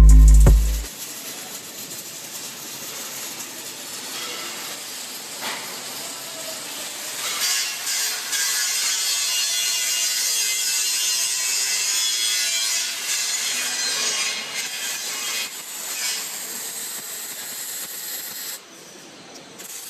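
Welding equipment at work on metal: a steady rough hiss with scattered crackles, louder for several seconds in the middle.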